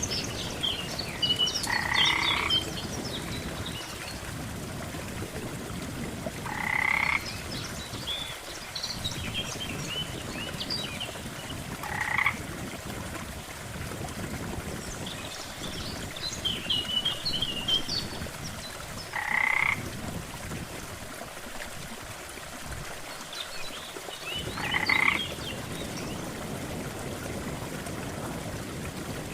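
Frogs croaking: one frog gives a short croak five times, roughly every five to seven seconds, over a chorus of small high chirping calls and a steady background hiss.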